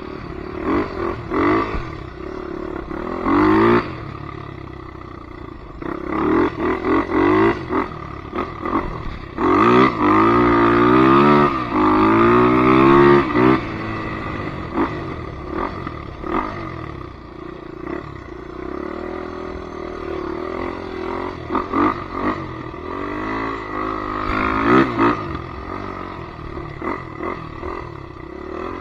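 Polaris Predator 500 ATV's single-cylinder engine revving up and down again and again. It is loudest about a third of the way through, with a run of quick rising and falling revs.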